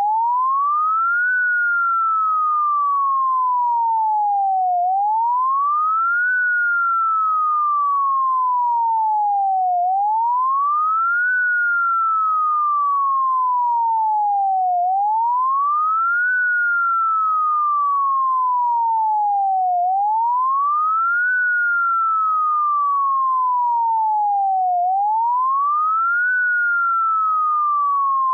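Synthesized fire-engine siren following the national-standard pattern, made as a single pure electronic tone. Each cycle rises quickly for about a second and a half, then falls slowly for about three and a half seconds, repeating steadily every five seconds.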